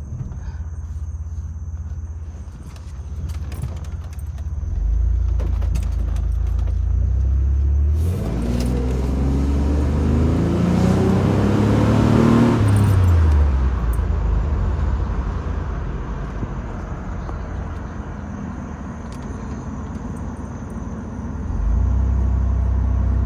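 Minivan being driven, heard from inside the cab with a window open: steady engine and road rumble, rising in pitch and loudness as the van speeds up about eight seconds in, peaking a few seconds later, then easing back to a steady cruise. The low rumble steps up again near the end.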